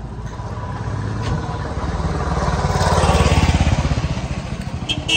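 A motor vehicle's engine passing close by on the road, its pulsing growing louder to a peak about three seconds in and then fading. A horn toots right at the end.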